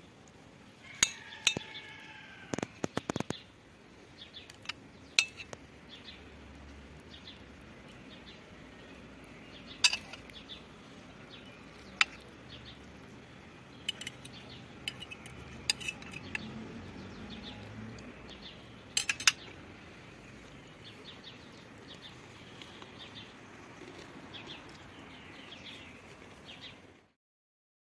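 Steel knife and fork clinking and scraping on a porcelain plate while cutting a meatball and boiled potato: scattered sharp clicks, a quick cluster about three seconds in and single louder clinks later on.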